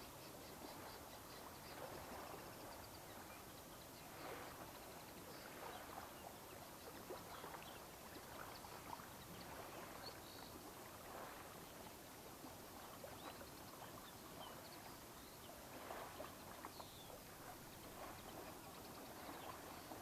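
Faint small waves lapping on the sandy shore of a calm cove, in soft, uneven swells. A few faint bird chirps sound above it, mostly near the start.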